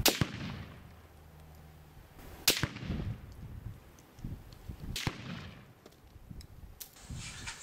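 Three rifle shots, each a sharp crack, about two and a half seconds apart, with a fainter crack near the end: a VEPR semi-automatic rifle in 7.62x54R firing a test group.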